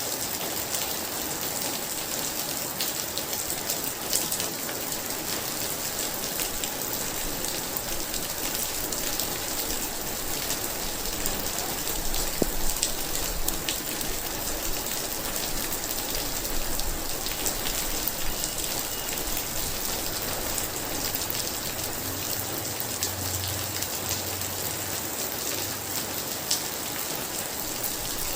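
Very heavy rain pouring steadily: a dense, even hiss with sharp taps of individual drops striking a surface.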